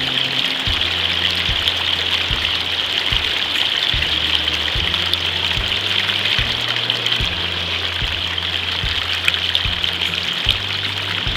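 Water flowing steadily over the trays of a Gold Cube gold concentrator, a constant splashing trickle, under background music with a steady beat and bass line.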